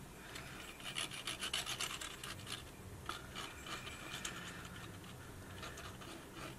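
Faint scratchy rubbing and light ticking of cardstock being handled and pressed into place by hand, busiest in the first two and a half seconds, then quieter.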